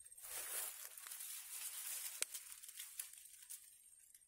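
Rustling and crackling of dry grass and reeds as the fishing rod is pushed through them, with one sharp click a little over two seconds in.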